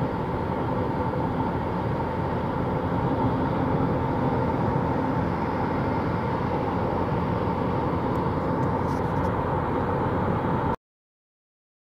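Steady road and engine noise of a moving car at speed, heard from inside the car, with a constant drone. It cuts off abruptly to silence near the end.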